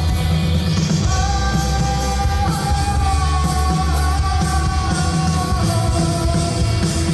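Live rock band playing, with a voice singing long held notes over loud bass and drums.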